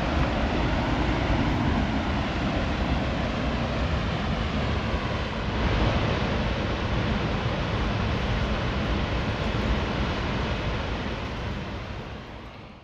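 Steady rushing roar of a waterfall heard from across the canyon, with wind buffeting the microphone. It swells a little about halfway through and fades away near the end.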